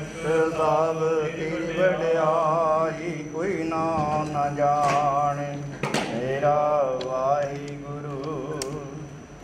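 Sikh kirtan: a man singing a hymn over a steady low drone, with a few sharp knocks about five and six seconds in.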